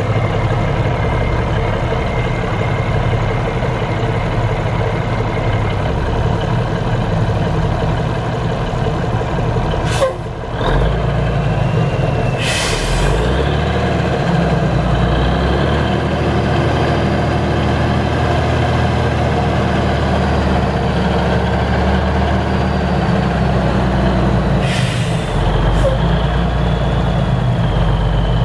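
Cummins NTC290 six-cylinder diesel of a 1979 Ford 9000 dump truck running steadily. A sharp clunk comes about ten seconds in, after which the engine note deepens. Two short hisses of released air from the air brake system come about twelve and twenty-five seconds in.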